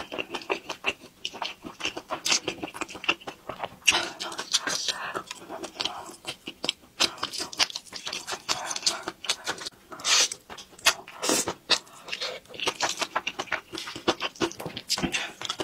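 Close-miked chewing of thick, saucy stir-fried noodles: many sharp, wet mouth clicks and smacks coming irregularly several times a second.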